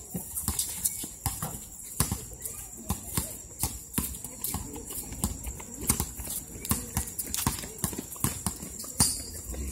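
Sneakered footfalls of several basketball players running on a concrete court: a stream of irregular sharp slaps and knocks, several a second.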